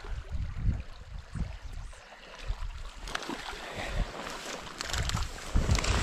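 Small river running, with irregular low buffeting on the microphone and scattered small clicks in the second half.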